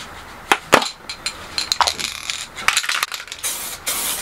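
Aerosol can of white spray primer: its mixing ball clinks as the can is shaken, then short hissing spray bursts start about three and a half seconds in.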